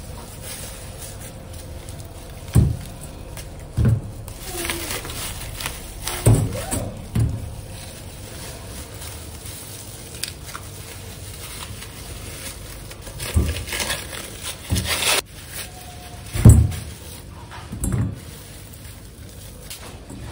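Kitchen handling at the stove: about eight short knocks and clunks of cookware, spread out, over a steady low hiss.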